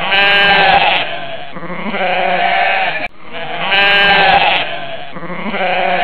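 Domestic goat bleating: a long, loud bleat followed by a quieter one. The same pair of bleats plays again after an abrupt cut about three seconds in.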